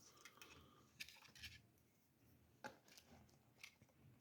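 Near silence with a few faint clicks and soft rustles from small items being handled while unboxing.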